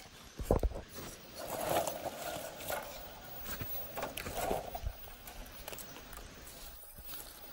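RC rock crawler working over rocks and dry leaf litter: tyres crunching and scraping through dead leaves, with a couple of knocks about half a second in.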